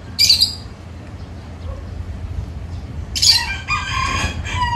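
A short, sharp high-pitched burst just after the start, then a rooster crowing once, a long call of about a second and a half near the end.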